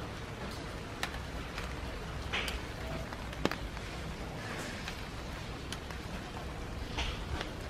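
Rain falling steadily, with scattered sharp drips and splashes of drops landing on leaves.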